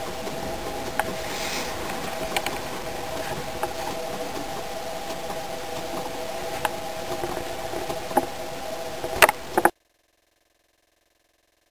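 A steady machine hum with a few scattered soft clicks, the loudest a quick cluster just before the sound cuts off abruptly to silence.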